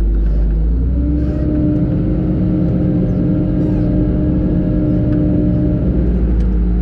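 Wheel loader's diesel engine heard from inside the cab. Its pitch rises about a second in, holds higher for about five seconds, then settles back near the end.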